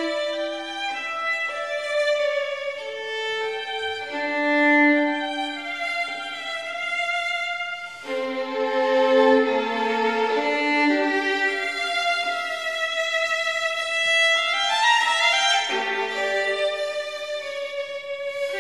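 Instrumental background music with long held notes, often several sounding together.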